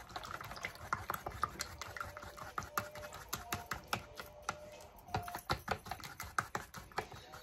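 Small whisk beating egg and yogurt in a plastic bowl: quick, irregular clicking and tapping of the whisk against the bowl's sides.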